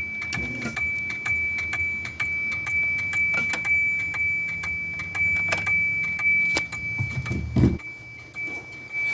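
A 1991 Subaru Loyale's door warning chime sounding as a rapid, even electronic ticking, about three a second, over a steady high tone. A low hum under it stops about a second before the end.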